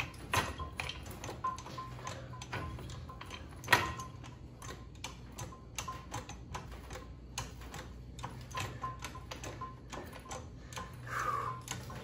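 Hydraulic floor jack being pumped up under a front lower ball joint: a run of light, irregular clicks and ticks, two or three a second, with one louder knock about four seconds in, over a steady low hum. The jack is putting load on the ball joint before it is driven out.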